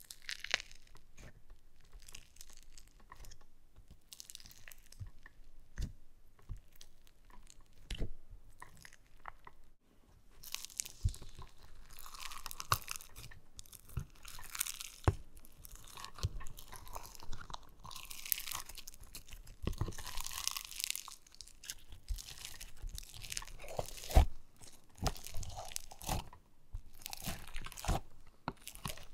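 Floam slime full of tiny foam beads being poked, squeezed and kneaded by fingers in a plastic tub: crunchy crackling and popping with scattered sharp clicks, the crackling densest around the middle.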